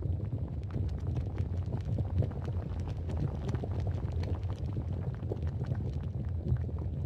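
Volcano sound effect: a steady deep rumble with dense crackling and popping, like molten lava bubbling and rocks cracking.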